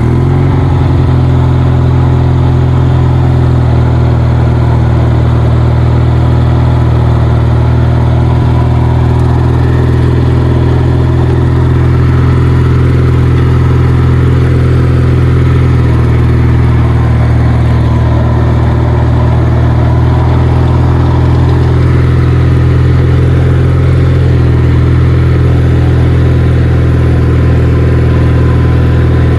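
Kohler 20 hp Magnum twin-cylinder engine on a riding mower, picking up speed about a second in as the throttle opens, then running steadily under load as the mower is driven.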